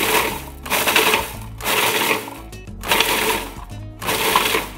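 Cuisinart food processor pulsed in short bursts of under a second, about one a second, its blade chopping coconut, green chillies, herbs and onion into a coarse mixture rather than a paste.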